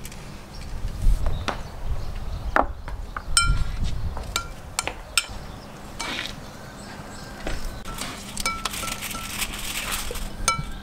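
A metal spoon stirring sauce in a glass bowl, striking the glass in a series of light clicks and short ringing clinks, more often in the second half.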